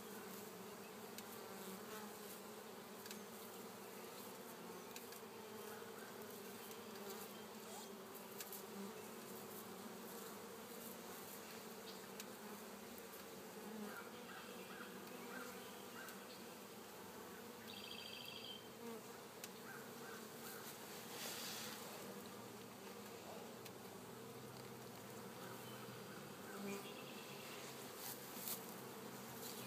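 Honeybee colony buzzing: a steady, faint hum of many bees over the opened hive.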